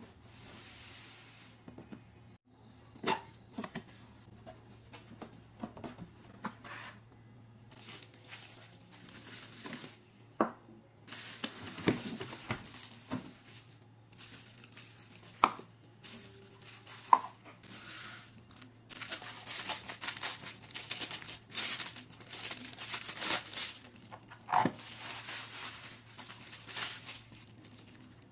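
Plastic packaging bags crinkling and rustling as blender parts are unwrapped from a cardboard box, with a handful of sharp knocks as hard plastic pieces are handled and set down on the counter.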